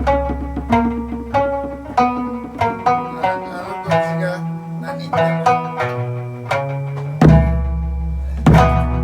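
Okinawan folk instrumental played live on plucked strings, likely a sanshin, in a steady, flowing run of notes. A low sustained bass tone sits underneath and drops out for about three seconds in the middle.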